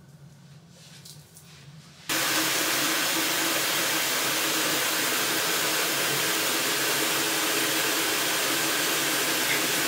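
Faint room tone, then about two seconds in a steady rushing hiss with a faint low hum switches on abruptly and holds level.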